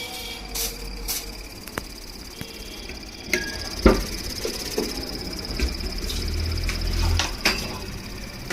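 Fridge compressor humming under test, the hum swelling for a second or two near the middle. A high steady whine joins about three seconds in, and there are a few sharp knocks, the loudest about four seconds in.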